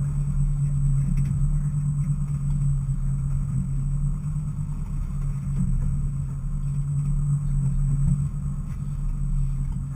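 Steady low drone of the fishing boat's engine running under way, with no change in pitch.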